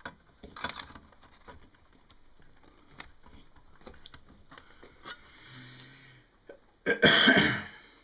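Faint clicks and taps of an SSD being pressed into its mounting slots inside an iMac, then a single loud cough from the man working on it near the end.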